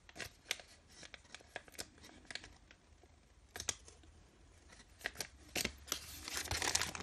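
Faint, scattered clicks and light paper rustling from handling gift packaging, growing denser near the end as a paper-wrapped package is picked up.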